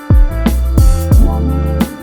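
Background music with a steady beat: pitched instrumental notes over a kick drum.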